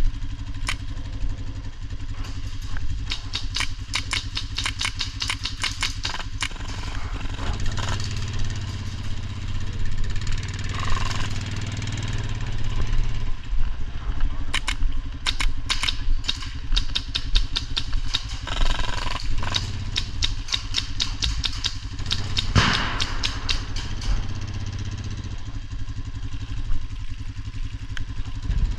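A vehicle engine idling steadily, with bursts of rapid clicking shots from airsoft guns, a long run a couple of seconds in and more past the middle.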